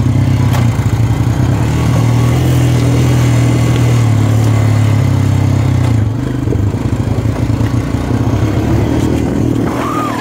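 Honda 350 quad's single-cylinder four-stroke engine running under way on a rocky trail. The engine note eases lower and a little quieter about six seconds in.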